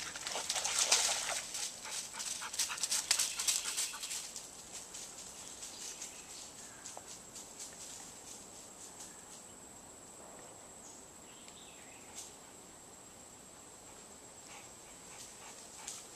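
A dog panting and moving about, loudest in the first four seconds, then fading to quiet.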